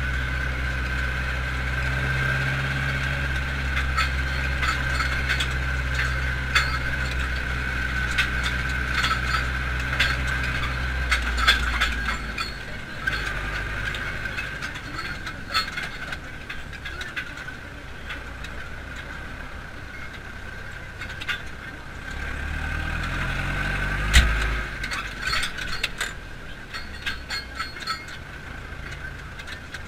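Zetor tractor engine running under way, heard from inside the cab, with the cab and its fittings rattling and clinking throughout. The engine's low hum drops noticeably about 12 seconds in. About two-thirds of the way through the engine revs up, then there is a sharp knock.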